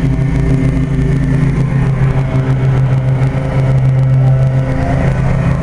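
A machine running with a steady low hum that holds the same pitch throughout.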